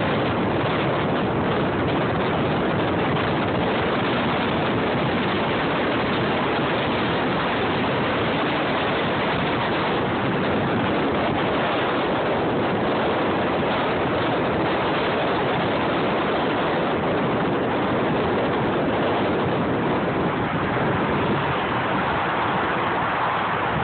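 Steady road and wind noise inside a car driving along a freeway: an even rushing noise with no changes.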